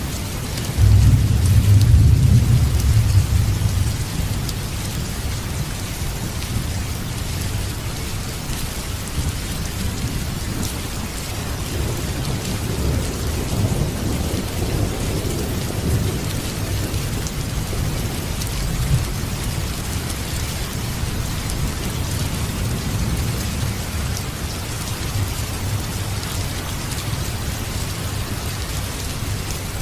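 Steady rain with thunder: a loud low rumble starts about a second in and lasts a few seconds, and a softer rolling rumble comes near the middle.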